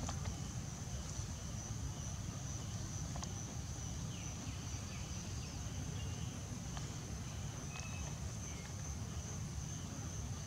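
Steady high-pitched drone of insects, one unchanging tone, over a low rumble, with a few faint ticks.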